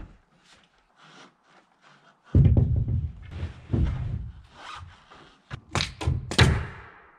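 Wooden board knocking and thudding against the sheathed wall as it is pushed into place, then four or five sharp cracks in quick succession from a pneumatic nail gun firing nails into it.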